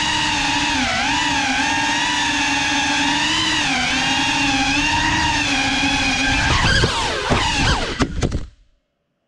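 Geprc Cinelog 35 cinewhoop's brushless motors and ducted props whining steadily, the pitch dipping and rising with each throttle change. About seven seconds in the pitch sweeps erratically and a few knocks sound as the drone strikes furniture, and then the motors cut out to silence.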